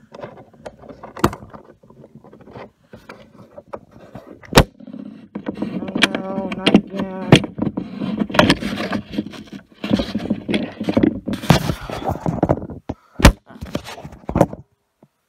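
Close knocks, clunks and rubbing from a phone camera being handled and moved, several sharp knocks loud against the microphone. Through the middle there is a denser, wavering pitched sound that may be muttering.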